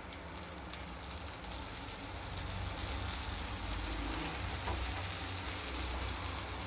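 Navadhanya dosa batter sizzling on a hot tawa with oil just drizzled over it: a steady, rain-like hiss that grows louder about two seconds in.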